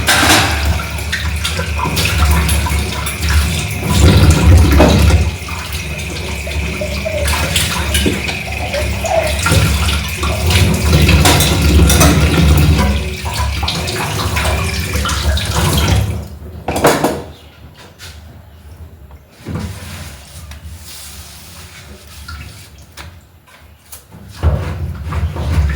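Water running from a tap into a sink, with small knocks and clicks, shut off about two-thirds of the way through; after that only faint handling clicks until louder noise returns near the end.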